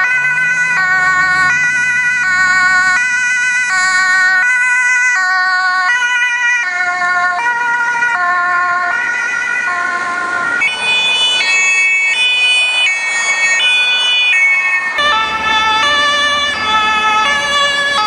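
German police two-tone siren (Martinshorn), switching between a high and a low note about once a second. It changes to other two-tone sirens, each pitched differently, about six, ten and fifteen seconds in.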